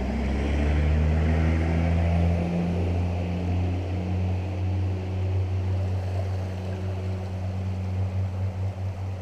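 A motor's steady low drone, its pitch shifting a little in the first few seconds and then holding even.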